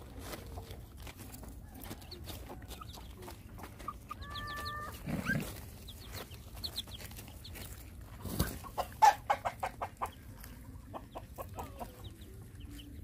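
Chickens clucking, with a quick run of about six clucks around nine seconds in. A drawn-out high call comes a little after four seconds, and small clicks and scuffs run underneath.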